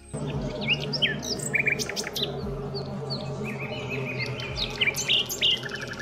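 Small songbirds chirping and calling, with many short high chirps, quick trills and rapid repeated notes overlapping, over a faint low steady drone.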